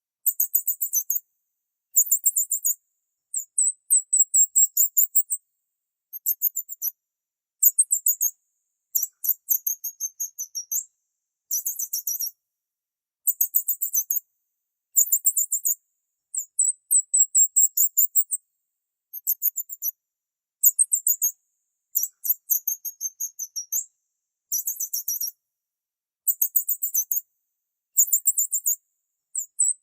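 High-pitched bird chirping: short trilled phrases of very rapid chirps, about half a second to a second long, repeated every one to two seconds with brief silences between.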